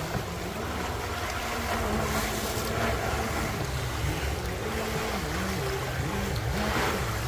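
A boat motor running over water, its low hum wavering up and down in pitch, with wind rumbling on the microphone.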